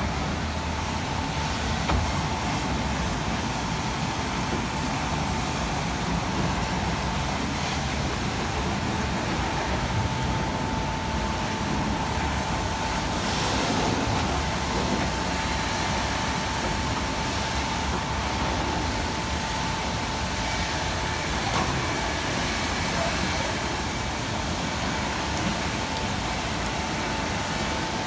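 Automatic rollover car wash running: its rotating brushes scrub over a van with a steady mechanical noise and a thin steady whine throughout.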